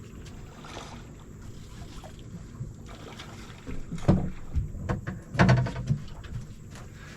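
Steady low rumble of a boat on the water, with loud knocks about four seconds in and again about a second and a half later.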